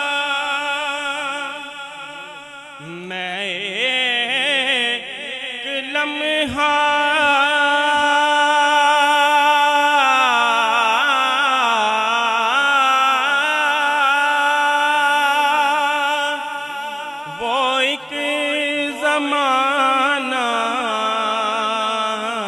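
A man singing a naat in a long, ornamented vocal passage, his voice wavering and sliding between notes, with one note held steady for a few seconds near the middle.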